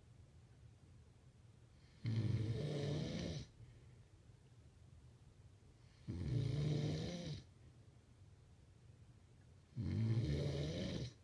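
A man snoring loudly in sleep: three long snores, each lasting over a second, about every four seconds, with quiet between them.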